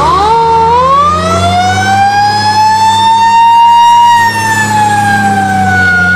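Fire truck siren wailing over a steady low engine hum. The pitch climbs quickly at first, then rises slowly to a peak about four seconds in and falls away toward the end.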